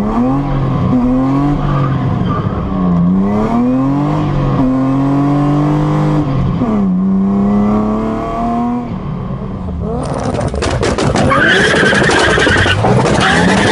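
BMW E30 engine and exhaust under hard acceleration, heard from inside the car: the revs climb and drop back at each upshift. About ten seconds in it gives way to a louder E30 drifting, its tyres squealing steadily over the engine.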